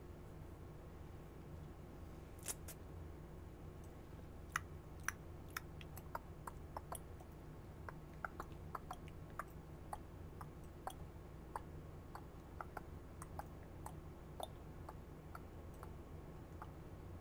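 Computer mouse clicking irregularly, short sharp clicks up to a few a second starting about two and a half seconds in, over a low steady hum.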